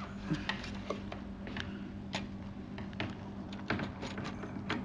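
Scattered light clicks and taps, irregular, a few a second, from hands handling a tape measure and pencil while marking a white profile, over a steady low hum.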